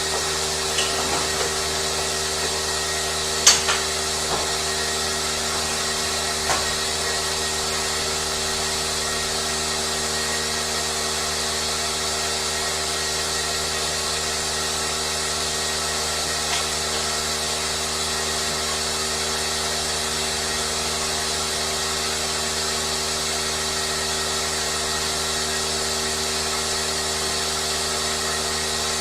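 Steady whir of a running motor-driven machine, even and unchanging, with a few sharp clicks in the first seven seconds.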